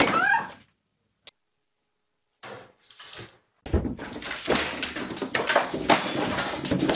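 A run of thumps and rattling begins about four seconds in, after near quiet, as a cat leaps off a cat tree and lands on the floor.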